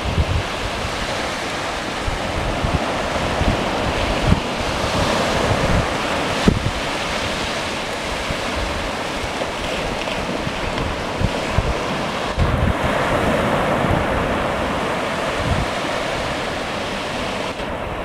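Sea surf breaking and washing in steadily, with wind rumbling on the microphone in short gusts.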